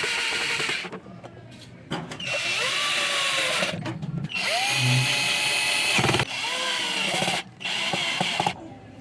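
Cordless drill-driver running screws back into the air cleaner box cover in five short runs of a second or two each. The motor's pitch rises as it spins up, then holds steady.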